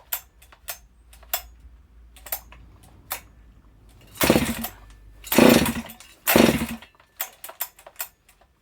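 Husqvarna 268XP two-stroke chainsaw being pull-started three times in quick succession, about a second apart, after some light clicks of handling. The engine turns over without catching; the owner takes it to be flooded with fuel.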